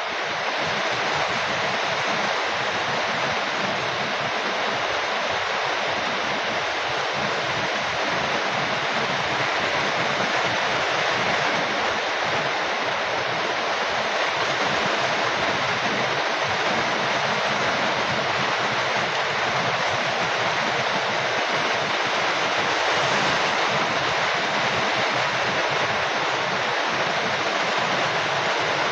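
Heavy rain falling, a steady loud hiss that does not let up.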